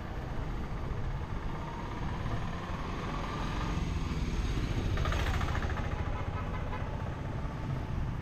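Street traffic with a steady low rumble, and a motorised auto-rickshaw (tuk-tuk) going past close by about five seconds in.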